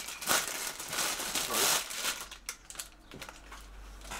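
Thin clear plastic wrapping crinkling and rustling as a towel is pulled out of it, in several bursts over the first two seconds, then a few lighter rustles.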